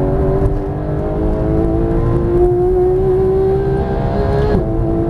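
Porsche 991 GT3's flat-six engine at full throttle, heard from inside the cabin, its pitch climbing steadily as the car accelerates. Near the end the pitch drops suddenly as it shifts up a gear, then starts climbing again.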